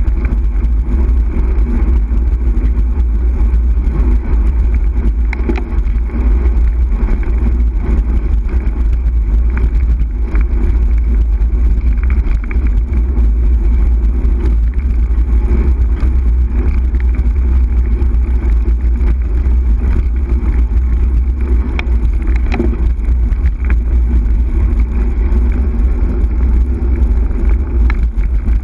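Wind rushing over the microphone of a camera mounted on a moving bicycle: a loud, steady low rumble with no letting up.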